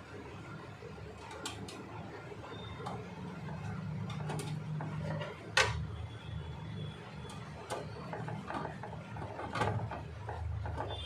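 Scattered small mechanical clicks and rattles over a low hum, with one sharp click about five and a half seconds in.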